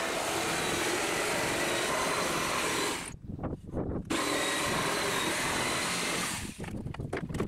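Electric jigsaw cutting through the protruding ends of wooden pallet planks: it runs for about three seconds, stops for about a second, runs again for about two seconds, then cuts out.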